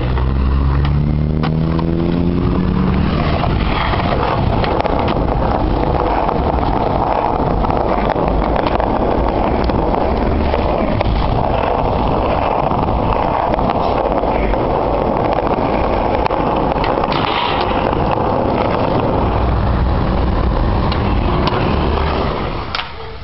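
Skateboard wheels rolling on concrete: a steady, loud rolling noise with scattered sharp clicks, and a rising tone in the first few seconds. The noise drops away shortly before the end.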